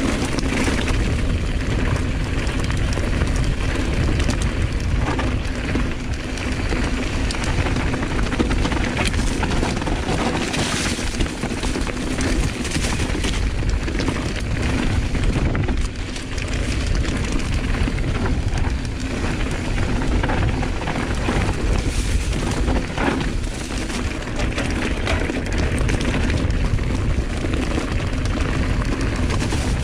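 Wind rumbling over an action camera's microphone as a mountain bike rides down a trail, mixed with tyre and drivetrain noise and a few sharp knocks over bumps.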